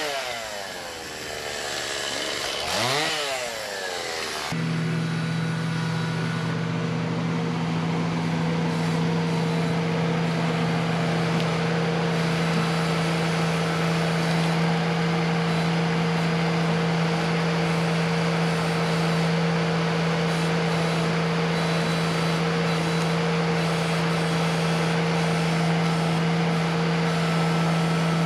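Chainsaw revving up and down twice in the first few seconds, then a steady engine drone held at constant speed.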